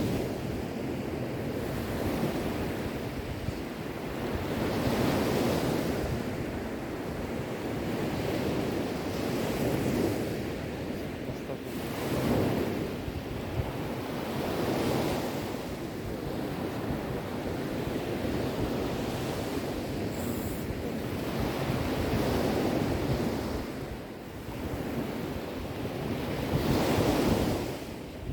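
Sea waves breaking and washing on the shore, the surf swelling and falling back every few seconds.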